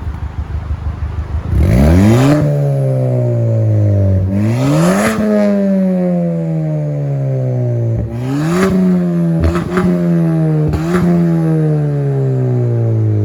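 Ford Fiesta ST's turbocharged 1.6-litre four-cylinder running through a decatted KMS Hurricane exhaust with 3-inch downpipe, idling with a pulsing burble, then revved four times: each blip climbs quickly and falls away slowly, with a few sharp cracks as the revs drop.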